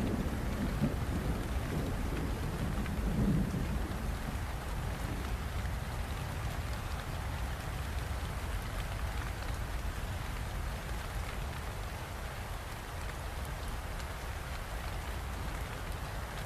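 Steady rain falling, with a low rumble of thunder in the first few seconds that fades away.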